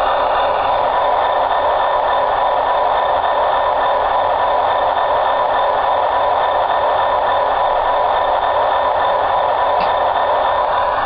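HO scale Broadway Limited Imports (Blue Line) SD40-2 model locomotive's onboard sound system playing a steady EMD diesel engine sound through its small speaker, with no change in pitch.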